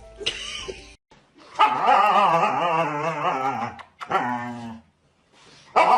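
Dog vocalizing in long, wavering cries: one of about two seconds, a short one after it, and another starting near the end.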